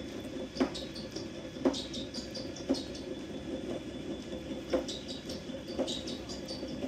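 Small birds chirping in quick, high, falling notes, with a soft knock about once a second and a faint steady hum underneath.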